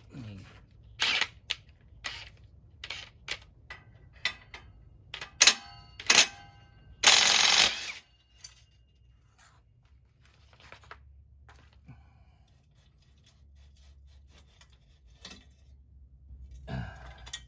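Sharp metal clicks and clanks from hand tools loosening the clamp and handling the exhaust pipe. About seven seconds in there is a loud metallic scrape lasting about a second, then only a few faint ticks.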